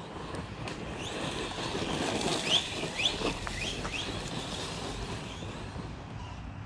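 Electric motor of a Losi Lasernut RC car whining up in several short bursts of throttle over a steady rush of tyre and ground noise, with two sharper hits a little after two and three seconds in.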